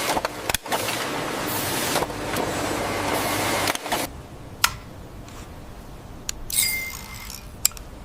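Machinery noise running steadily, then dropping away about four seconds in, leaving a few sharp clinks and a short hiss near the end.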